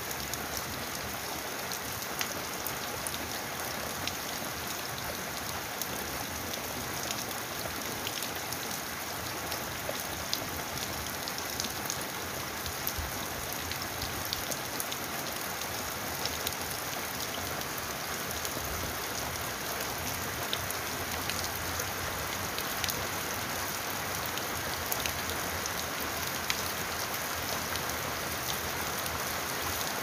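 Steady rain falling, an even wash of noise with scattered sharp taps of individual drops hitting a surface.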